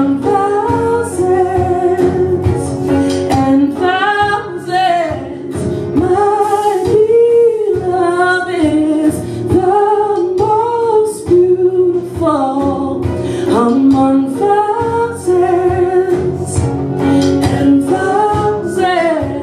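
A woman singing a gospel worship song into a microphone, in phrases with long wavering held notes, over backing music with steady held chords.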